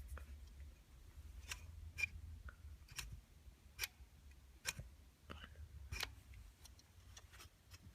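Irregular sharp clicks and light knocks, roughly one a second, from an elevator fire-service button panel being handled and its stiff spring-loaded button pressed, over a low rumble of handling noise.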